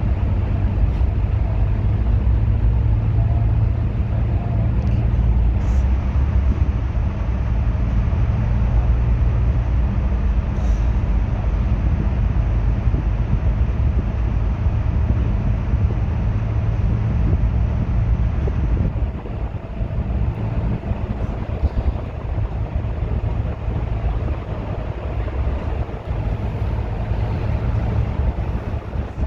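Bus engine running under way with road noise, a steady low hum; about two-thirds of the way through the engine note drops away and the level falls a little.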